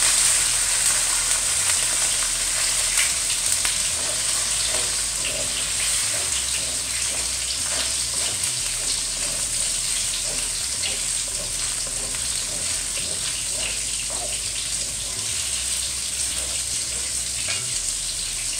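Olive oil sizzling and crackling in a pan of frying diced bell peppers with tomato sauce just poured in and stirred with a wooden spoon: a steady hiss with scattered crackles that slowly eases as the sauce cools the pan.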